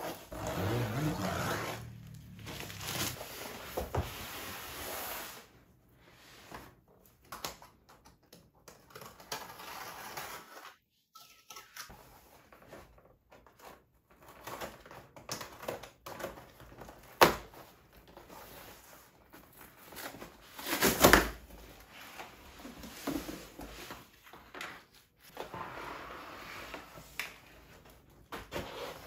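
Unpacking a large flat cardboard box: a box cutter slitting the plastic shrink wrap, then taped cardboard flaps being pulled open and flat panels and packing sheets sliding out, heard as irregular rustling, scraping and tearing. A sharp knock comes a little past halfway, and a louder brief rustle follows a few seconds later.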